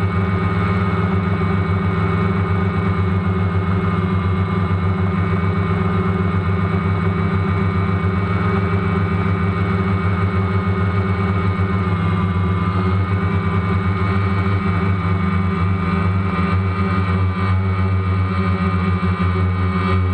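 DJI Phantom quadcopter's electric motors and propellers buzzing steadily in flight, heard close up from a camera mounted on the drone, with a slight shift in pitch about two-thirds of the way through.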